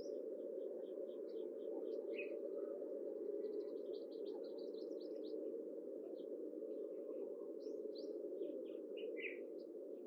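Small birds chirping: many short, high notes, some in quick runs, over a steady low background rumble.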